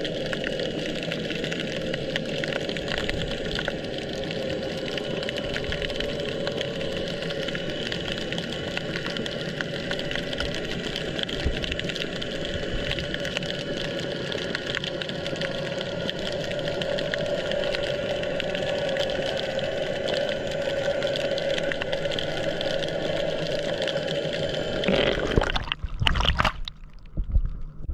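Steady underwater hum and hiss picked up by a submerged camera, with a mechanical, engine-like drone running through it. Near the end the hiss cuts out abruptly and low sloshing thumps and gurgles take over as the camera moves in the water.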